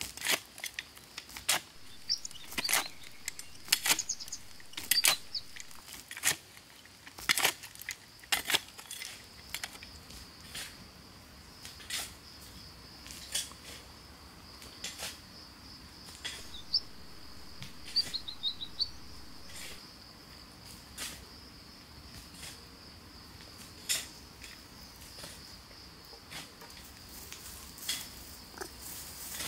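Sharp, irregular knocks and clicks, dense at first and sparser later, over a steady high insect drone, with a few bird chirps.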